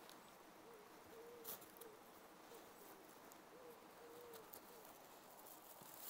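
Faint cooing of a pigeon in a repeated phrase of soft, low notes, over quiet outdoor ambience, with one light click about a second and a half in.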